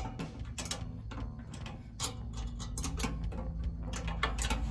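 Metal clicks of a 13 mm spanner tightening the intake manifold nuts on a VW aircooled engine, irregular and in short runs.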